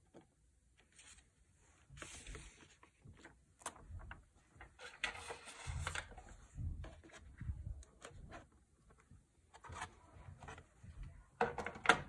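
Keyboard packaging being handled: plastic sheets and the cardboard box rustling and rubbing, with a few light knocks. A longer rustle comes about five seconds in, and the loudest burst of handling comes near the end.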